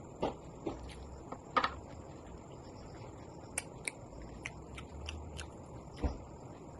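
Close-up eating sounds of someone eating dum biryani: scattered short wet smacks and clicks of chewing, the strongest about a second and a half in, and a soft low thump near the end.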